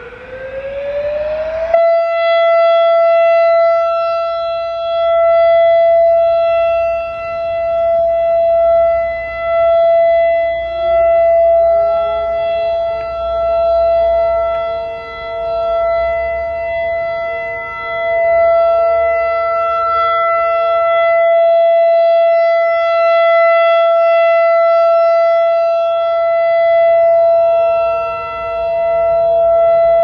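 Federal Signal EOWS 612 electronic siren, run from an ASC controller, winding up in pitch for about two seconds and then jumping to a steady alert tone. Its loudness swells and fades every few seconds as the horns rotate. From about ten seconds in, a second, lower tone slides up and holds beneath the first.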